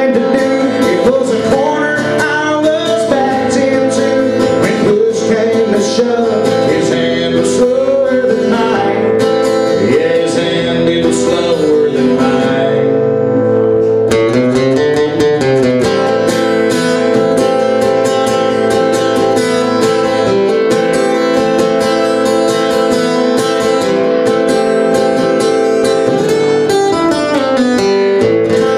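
A man singing a country song to his own strummed acoustic guitar, played live. About halfway through the voice falls away, leaving steady strummed chords.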